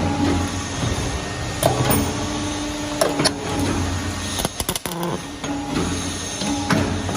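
Double J hook bending and welding machine running: a steady motor hum with sharp clicks and clanks every second or so, and a quick rattle of clicks a little past the middle.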